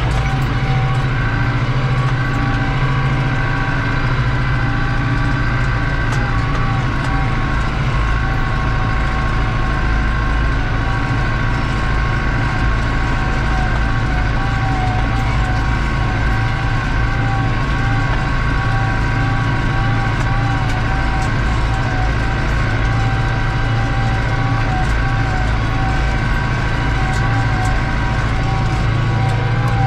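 New Holland TD85 tractor's turbo diesel engine running steadily under load, pulling a disc harrow through ploughed ground, heard from inside the cab. A deep engine drone carries a steady, slightly wavering turbo whine above it.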